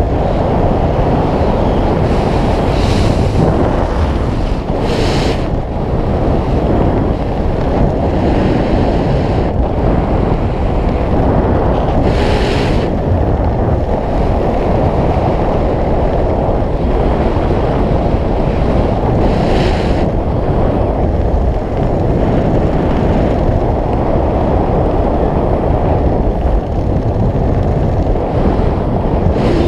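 Air rushing over the camera's microphone during a skydive descent: a loud, steady wind rumble, with a few brief hissing gusts every several seconds.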